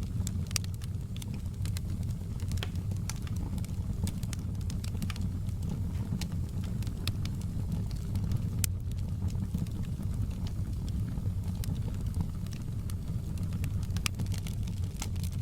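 Wood fire burning in a fireplace, the logs crackling with frequent sharp pops and snaps over a steady low rumble of flames.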